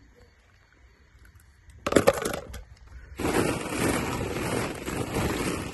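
Hollow plastic ball-pit balls clattering against each other as a hand digs through them: a short burst of clatter about two seconds in, then steady rummaging clatter from about three seconds in.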